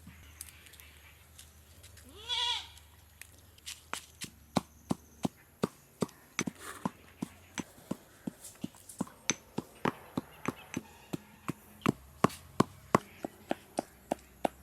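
A short wavering animal call about two seconds in, then a knife chopping on a cutting board at about three strikes a second, a few strikes louder near the end.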